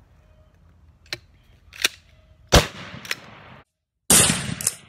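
Stevens Model 77F 12-gauge shotgun firing: a loud sharp shot about two and a half seconds in, and another loud blast near the end after a brief cut to silence. A couple of smaller sharp knocks come before the first shot.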